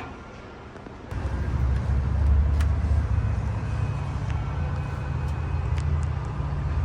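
Toshiba hydraulic elevator's pump unit starting suddenly about a second in, then running with a steady low hum as the car travels.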